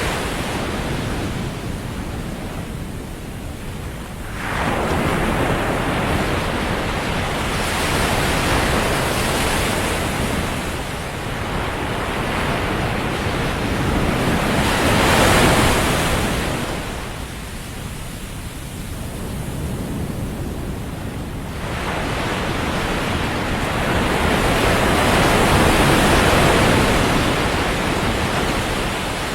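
Ocean surf breaking on a sandy beach: a steady wash of wave noise that swells and ebbs in slow surges, loudest about halfway through and again near the end.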